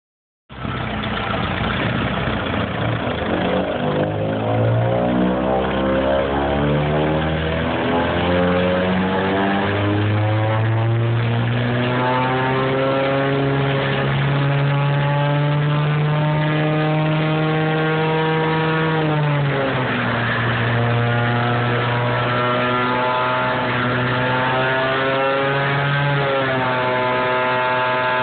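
Trailer-mounted truck-loader leaf vacuum running hard, its engine and fan climbing steadily in pitch over the first ten seconds or so and then holding. The pitch drops about two-thirds of the way through and steps up a little near the end, over a steady rush of air drawn through the hose.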